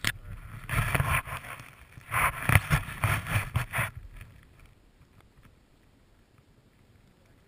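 Snowboard cutting through deep powder snow: two rushing bursts of snow in the first four seconds, then almost quiet.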